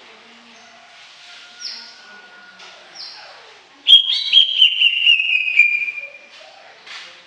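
Cucak ijo (green leafbird) singing: a few faint, short, thin notes with two quick downward sweeps, then about four seconds in a loud, rapid whistled phrase of about two seconds that slides gradually lower.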